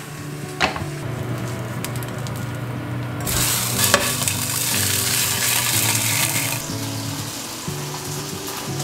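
Fish sizzling in a frying pan as it is flipped with a spatula, the sizzle swelling loud about three seconds in and easing off after six. A single sharp clink comes shortly before, about half a second in.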